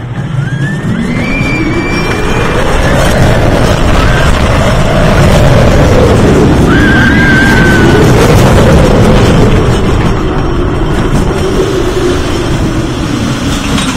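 Steel roller coaster train running at speed down the drop and through the loops: a loud roar of wheels on the track and rushing wind that swells in the first seconds and rises and falls in pitch twice. Brief high-pitched rider screams cut through now and then.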